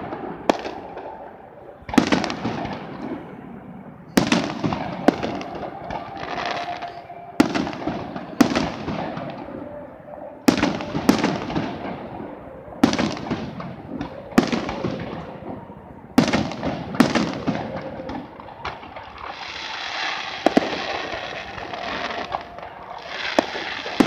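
Aerial fireworks shells bursting, a sharp bang every second or two, each followed by a rolling echo.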